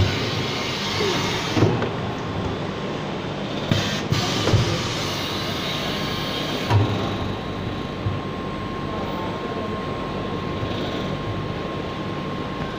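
Bottle shrink-wrap packing machine running with a steady hiss and a faint steady whine. A few dull thumps come in the first half as packs of water bottles are wrapped and pushed through.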